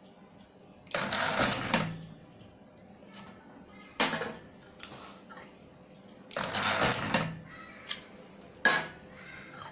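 Automatic taping machine wrapping protective tape around a USB charger shell in two cycles. Each cycle is a noisy mechanical run of about a second, near the start and again past the middle, with sharp clicks in between and toward the end.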